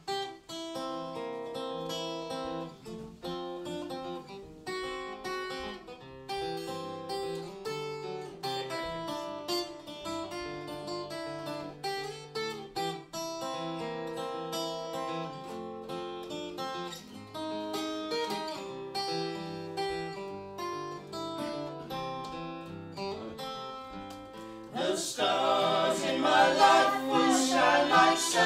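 Steel-string acoustic guitar picking the introduction of a country song. About 25 seconds in, several voices come in singing in harmony, with a fiddle, and the music gets louder.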